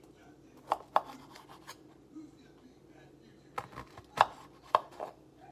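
Kitchen knife cutting Brussels sprouts on a cutting board: sharp knocks of the blade striking the board, a pair about a second in and a cluster of several near the end.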